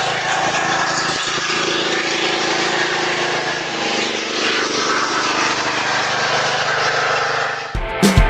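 Riding lawnmower's small petrol engine running steadily. Rock music with drums and guitar cuts in near the end.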